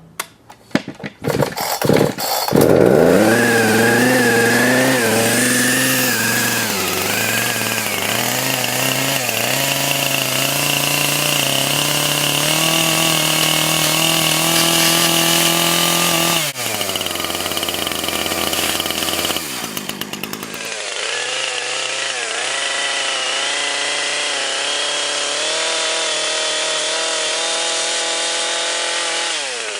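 Chainsaw engine: a few sharp knocks in the first two seconds or so, then it catches and runs at high speed, its pitch wavering as it is revved. About two thirds of the way through it slows and drops in pitch briefly, then speeds up again and runs on.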